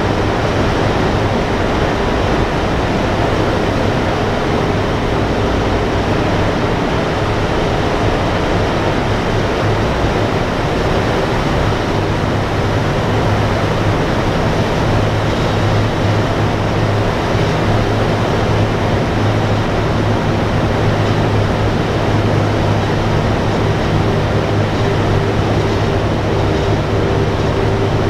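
Steady drone of a B-17 bomber's four Wright R-1820 Cyclone radial engines heard from inside the fuselage, a low hum under a loud, even noise that hardly changes.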